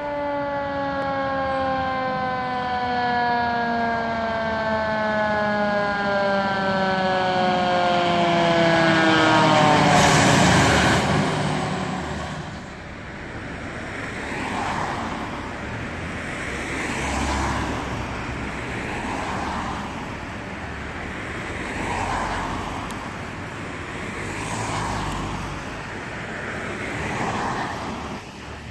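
Fire apparatus sirens. A siren winds down in one long falling tone over about ten seconds. A loud burst of rushing noise follows, then a quieter siren wails up and down about every two and a half seconds.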